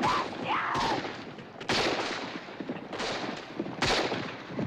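Gunshots in a film gunfight: several shots, each with a long echoing tail, spaced a second or so apart, with a short high cry just after the first.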